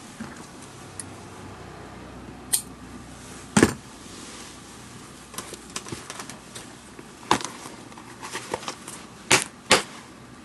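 Leather baseball glove being handled and turned over on a cushion, with a handful of sharp clicks and knocks and light crackling of the leather.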